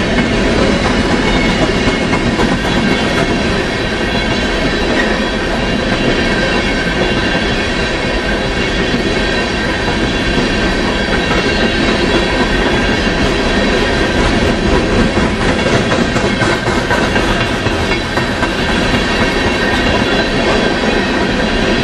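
Freight train's hopper cars rolling past close by: a loud, steady rumble of steel wheels on rail with clicking over rail joints and thin high ringing tones from the wheels.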